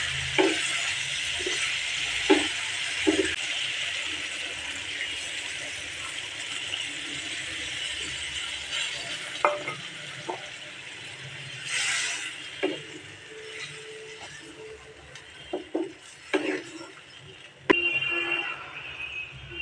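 Frying in a pan: a steady sizzle with a spatula stirring and clinking against the metal, the sizzle growing fainter in the second half.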